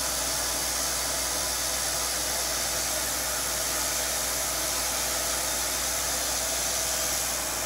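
Journeyman 200R CNC milling machine running: a steady whirring hiss with a faint low hum under it.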